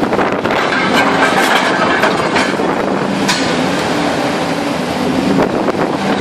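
Bonfiglioli Squalo 2000 inclined scrap shear working: a steady machine drone with several sharp metallic clanks and screeches of scrap steel being cut and pushed through.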